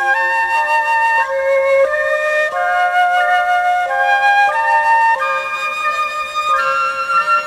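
Background music: a flute melody of held notes stepping up and down over a sustained lower note.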